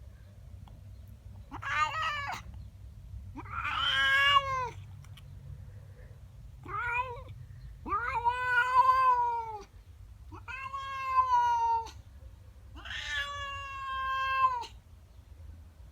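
Domestic cat yowling in about six long, drawn-out calls that waver in pitch: territorial caterwauling at another cat in her garden.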